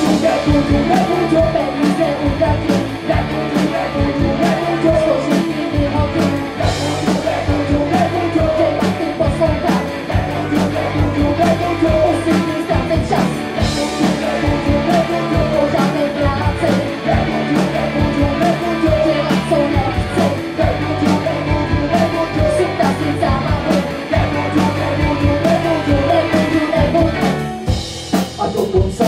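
Live rock band playing: electric guitars, bass guitar and drum kit keeping a steady beat, with a wavering lead melody over the top.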